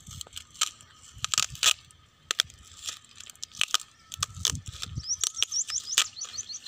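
Parcel tape and plastic wrapping crackling and tearing in irregular sharp bursts as it is picked open by hand. A bird twitters briefly near the end.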